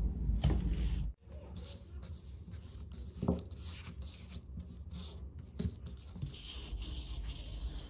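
Soft bread dough slid into a bowl with a dull thump in the first second, then a hand rubbing oil over the dough ball: a soft, steady rubbing with a couple of light knocks against the bowl.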